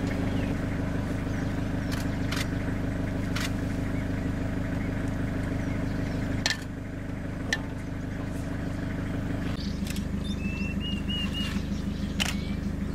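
A vehicle engine running steadily, its note dropping a little about two-thirds of the way through. A few sharp clicks and a short run of high chirps sound over it near the end.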